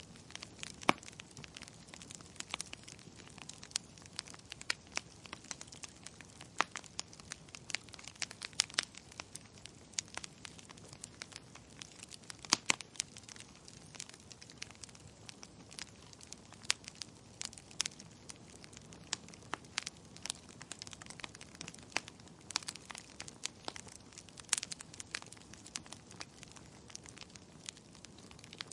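Burning logs in a wood fire crackling: a constant scatter of sharp, irregular pops and ticks over a faint hiss, with a few louder snaps now and then.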